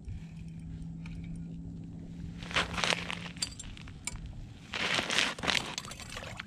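Slush and ice crunching and scraping in an ice-fishing hole as a skimmer is worked through it, in two bursts about two and a half and five seconds in, over a low steady hum in the first half.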